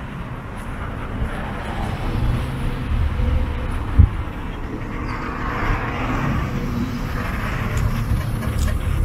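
Road traffic noise on a city street, a steady rumble that swells and fades, with one sharp thump about four seconds in.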